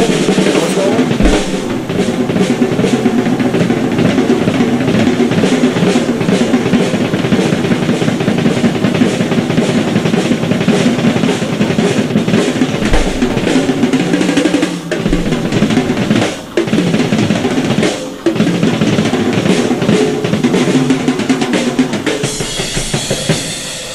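Rock drum kit solo played at speed: fast strokes around the snare and toms over double bass drum, with hi-hat and ride cymbal. Two short breaks come about two-thirds of the way through.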